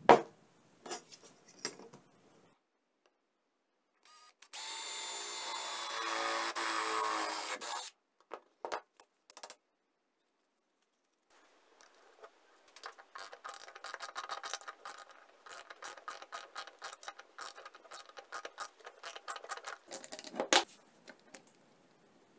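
A sharp knock as a block of wood is set down on the bench, then a steady mechanical whir for about three seconds. Later comes a long run of small rapid metal clicks and scraping as a bolt is handled and fitted at the gear head of a cordless angle grinder.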